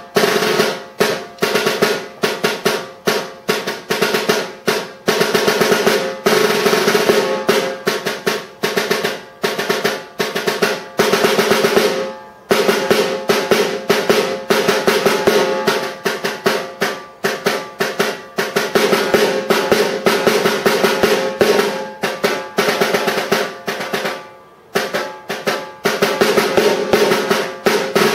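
Concert snare drum played solo with sticks: a fast run of strokes and rolls with accents, breaking off twice for a moment.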